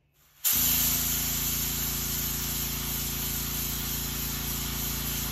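Airbrush spraying paint for a shad dot on a crankbait: a loud, steady hiss that starts suddenly about half a second in, over a steady low hum.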